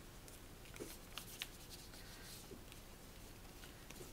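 Faint rustling and a few light clicks of kraft paper being pressed and smoothed down by hand.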